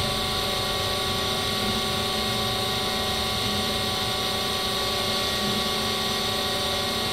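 Brown & Sharpe Micromaster 618 surface grinder running, its spindle and table feed making a steady whine and hiss as the table traverses.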